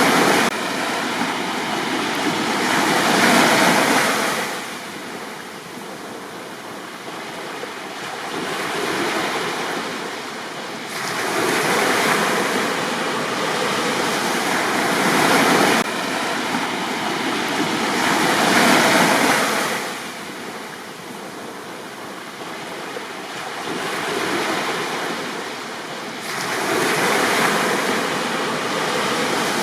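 Sea waves washing onto a beach, rising and falling in slow surges every several seconds, with light wind on the microphone.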